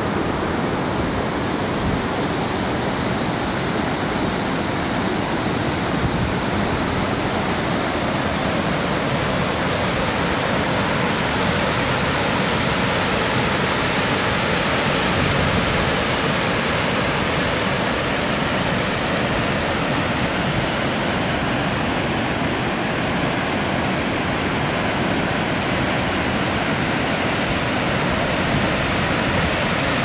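Glymur waterfall's water falling into its canyon: a steady, unbroken rush.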